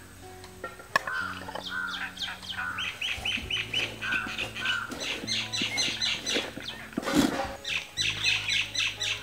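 Birds chirping and calling in quick series of short, high repeated notes, over steady background music.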